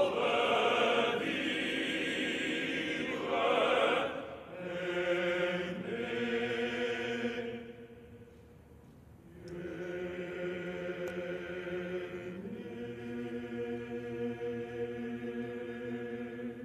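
A choir singing slow, long-held chords. The singing drops away for about a second and a half around eight seconds in, then resumes.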